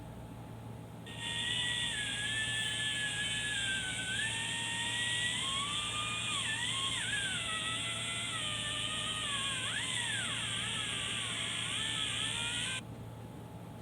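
Electric angle grinder running at speed, its high whine sagging and wavering in pitch as it is loaded in a cut. It comes in suddenly about a second in and cuts off sharply near the end.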